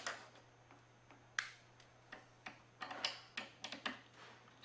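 Socket wrench ratcheting in light, irregular clicks while hand-tightening a leg bolt into a log swing's arm: one sharp click about a second and a half in, then a run of quicker clicks.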